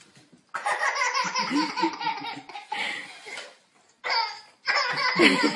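Baby laughing in two long fits, the first starting about half a second in and the second about four seconds in.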